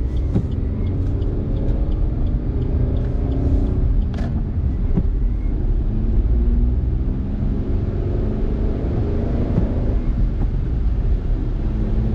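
Car driving along a wet road: steady engine and tyre rumble, with a short run of faint, evenly spaced ticks in the first two seconds.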